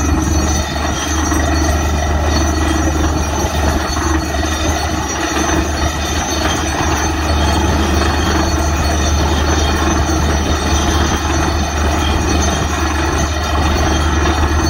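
DTH borewell drilling rig running steadily while drilling rock: a loud, unbroken drone of its diesel engine and air compressor driving the down-the-hole hammer.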